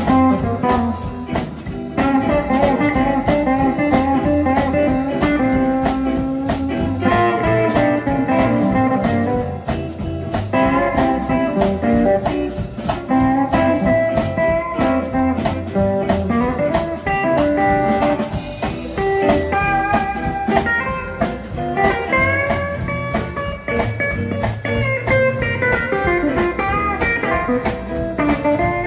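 Live blues band playing an instrumental break: an electric guitar plays a lead line with bent notes over upright bass and a drum kit keeping a steady beat.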